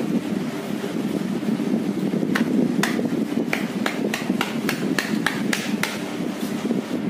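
A run of about a dozen sharp knocks, roughly three a second, starting a couple of seconds in and stopping about a second before the end, over a steady low noise.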